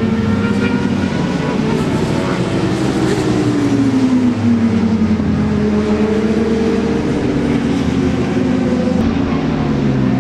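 Racing motorcycle engines running at high revs as bikes pass on track. The pitch slides down over a couple of seconds, rises again around halfway and falls once more near the end.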